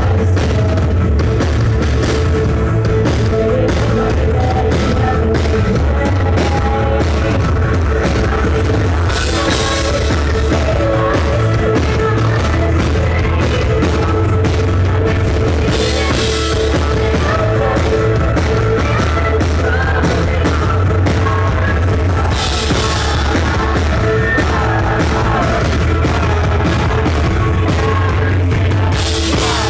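Live rock band playing loudly through a venue PA: a driving drum-kit beat under a female lead vocal, with a brighter crash about every six or seven seconds.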